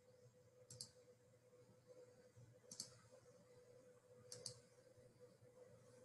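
Near silence: faint room tone with a steady hum and three faint clicks, each a quick double click, about one, three and four and a half seconds in.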